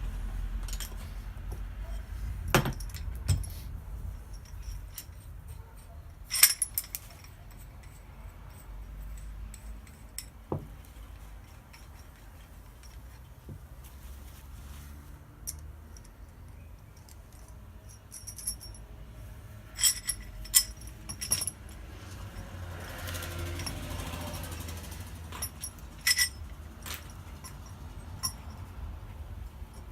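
Metal tools and parts clinking and knocking now and then as they are handled, with a sharp clink about six seconds in and a few more around twenty seconds, over a steady low hum.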